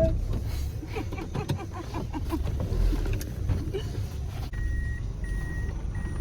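Low rumble of a vehicle engine and outdoor noise, then from about four and a half seconds in a reversing alarm beeping repeatedly at a steady high pitch.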